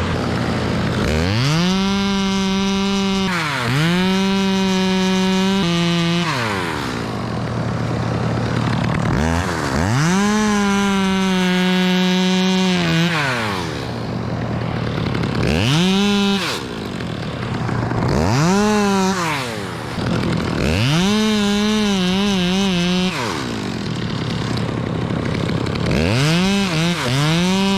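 Two-stroke chainsaw revving up to full throttle and cutting wood, held for one to four seconds at a time and dropping back to idle in between, again and again.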